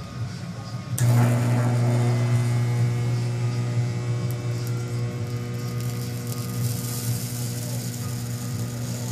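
Rewound microwave oven transformer switched on about a second in and buzzing loudly and steadily at mains hum pitch, with crackling over it, as a piece of metal across its high-current winding shorts it out and heats up.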